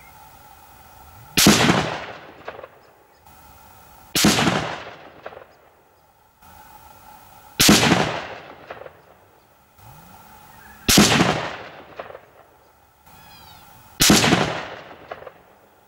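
Five rifle shots from a Lithgow LA102 bolt-action in .243 Winchester, fired as a five-shot group, about three seconds apart. Each report has a long fading tail and a sharp echo about a second after it.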